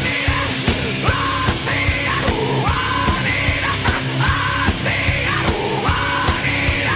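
Loud heavy rock music with a steady pounding drum beat and yelled vocal lines.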